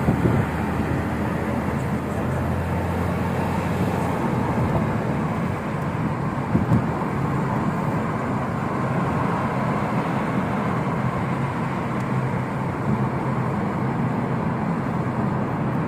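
Steady engine and road noise of a car heard from inside the cabin as it drives along, with a low engine hum in the first few seconds.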